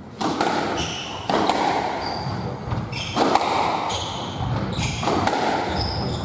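Squash rally: the ball struck sharply by rackets and slapping off the court walls about once a second, echoing in the court, with short high squeaks of shoes on the wooden floor between the shots.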